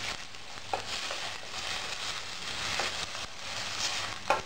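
Water poured into a hot steel pot of fried onion and mashed potato, hissing and splashing, while a steel ladle stirs and clinks against the pot a few times, loudest near the end.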